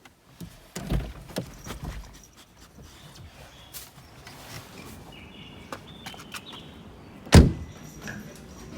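A few soft knocks and clatters, then one loud, sharp thump about seven seconds in.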